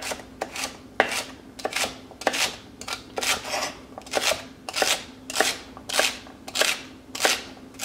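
Chef's knife slicing through a bundle of celery stalks on a wooden cutting board: a crisp crunch and knock on the board with each cut, repeated steadily about every two-thirds of a second.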